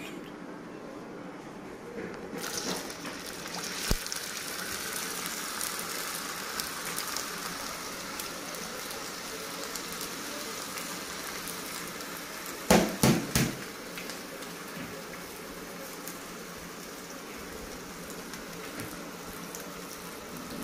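Taro root strips frying in a black iron kadai: a steady sizzling hiss that sets in about two seconds in. About two-thirds of the way through comes a quick cluster of sharp knocks.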